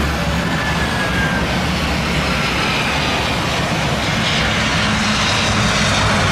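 Jet engines of a Citilink Airbus A320 running steadily as the airliner lands, with a faint gliding whine in the noise. The engine noise grows stronger about four seconds in, as the main wheels touch down.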